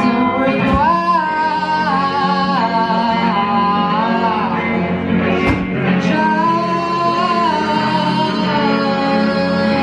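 Music: a voice singing long held notes that slide from one pitch to the next, over guitar accompaniment.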